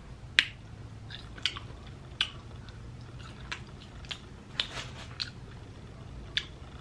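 Close-miked eating of boiled seafood: chewing with about seven sharp, wet mouth smacks at irregular intervals.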